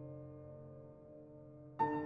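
Gentle instrumental background music: held notes slowly fading, with a new chord struck sharply near the end.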